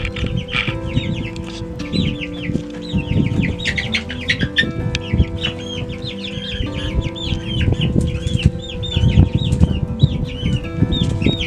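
A flock of young chickens (Barred Rock, Buff Orpington and Rhode Island Red pullets) peeping and cheeping: a steady run of many short, high chirps overlapping one another.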